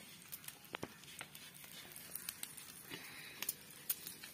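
Faint, scattered crackles and small clicks of bread slices toasting in butter on a hot flat pan, with the light scrape of a slice being moved by hand.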